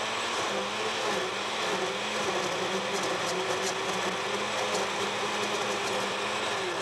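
Glass-jar countertop blender running steadily, whipping an orange, egg, milk and ice cream shake, with an even motor hum.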